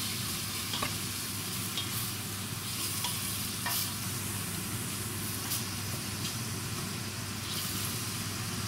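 Pork belly pieces sizzling in hot fat in a stainless steel pot, stirred with a wooden spatula that scrapes and knocks against the pot about once a second. A steady low hum runs underneath.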